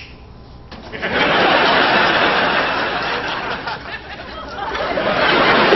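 Studio audience laughing: the laughter breaks out about a second in, eases off, then swells again near the end.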